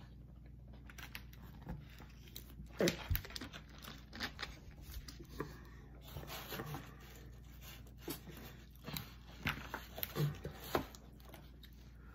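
Close-up eating sounds: irregular wet clicks, smacks and chewing noises from people eating pizza, with occasional rustling.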